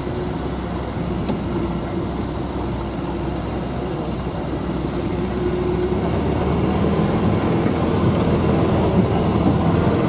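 UAZ off-road vehicle driving over a rough dirt track, its engine and road noise heard from inside the cabin. The engine gets louder about six seconds in, as it pulls harder.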